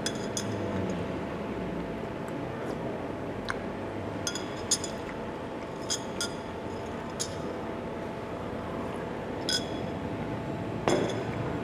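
A spoon clinking against a glass of iced drink: about ten light, ringing clinks spaced irregularly, with a brief clatter near the end, over a steady room hum.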